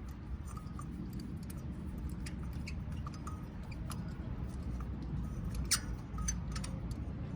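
A spark plug socket and extension being spun by hand, threading a spark plug into the cylinder head: faint, irregular small metallic clicks and scrapes over a steady low hum.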